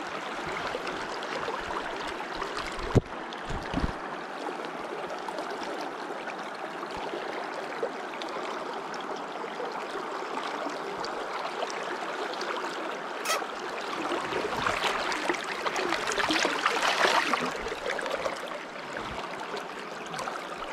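River water running steadily, with a louder surge of the flow for a few seconds past the middle. Two brief low thumps sound about three seconds in.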